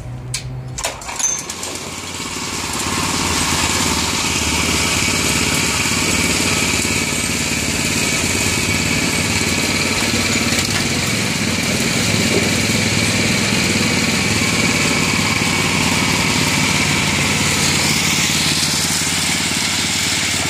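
Small gasoline engine on a gold trommel pull-started with a few sharp clicks, then catching and running steadily as it turns the drum. A dense hiss of water splashing through the turning drum runs alongside the engine.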